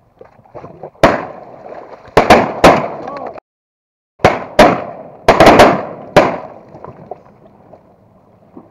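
Several shotguns firing in quick succession: about ten shots in two volleys with a short break between them, each shot followed by a fading echo.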